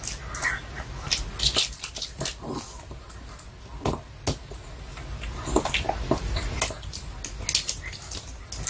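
Pomeranian gnawing on a duck-cartilage bone chew held in its paws, with irregular crunching and clicking of teeth on the hard treat.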